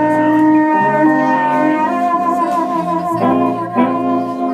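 Blues band playing: a harmonica holds one long note, then warbles and moves to shorter notes about two seconds in, over electric guitar and a walking electric bass line.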